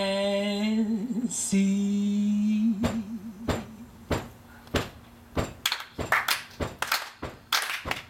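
A woman singing a long held note with vibrato, with a second voice joining under it. About three seconds in, hand claps begin, sparse at first and then thickening into a steady clapped beat from several people.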